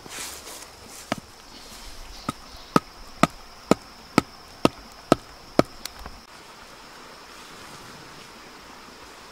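A wooden stake being pounded into the ground with a wooden club: about eight sharp knocks, roughly two a second, that stop a little before the six-second mark.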